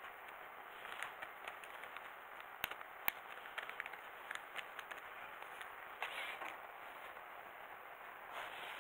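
Faint clicks and rustling from small plastic robot-kit parts and a thin cable being handled, with two sharper clicks about two and a half and three seconds in, over a steady hiss.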